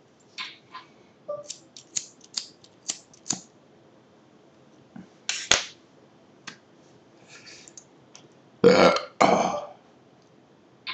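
A quick run of short sharp clicks, one louder click a little later, then a person burping twice, loudly, near the end.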